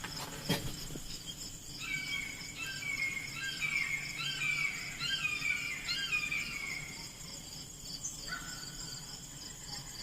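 Insects trilling steadily, with a songbird singing runs of short notes over them. There is a single knock about half a second in.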